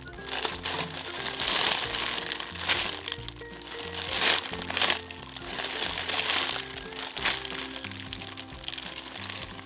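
Background music with a steady bass line, over which plastic packaging crinkles in irregular swells as a packaged squishy toy is handled.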